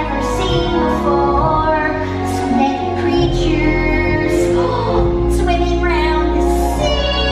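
Song from a stage musical: singing over a continuous musical backing.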